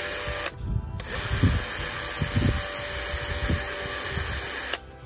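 Pathé Professional Reflex 16 film camera running, its mechanism whirring at a steady pitch: a short run that stops about half a second in, then a longer run of nearly four seconds that cuts off suddenly.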